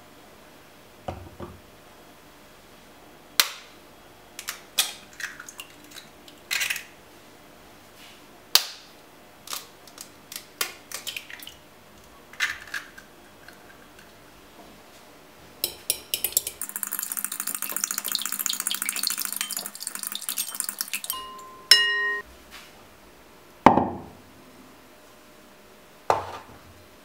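Sharp taps and clinks as eggs are cracked against a glass bowl and dropped in. Next comes about four seconds of rapid clicking and scraping as the eggs are beaten in the glass bowl, then a brief ringing clink. Near the end there are two hard knocks as a metal grater is set down on a wooden cutting board.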